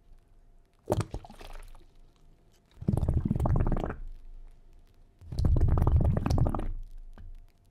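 Underwater bubbling sound effect: a short burst of bubbling water, then two longer surges of about a second each, a couple of seconds apart.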